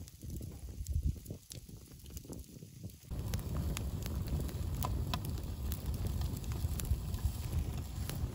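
Wood fire burning: at first a quieter low rumble with scattered crackles from smouldering charred logs, then about three seconds in a louder, steady blaze with frequent crackles and pops.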